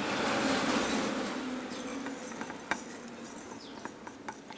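Whole spices (mustard and cumin seeds with pieces of ginger) being tipped and pushed from a plate into a stainless-steel mixer-grinder jar: a rattling pour of small seeds against the metal for about two seconds, fading into scattered light clicks as the last seeds drop in.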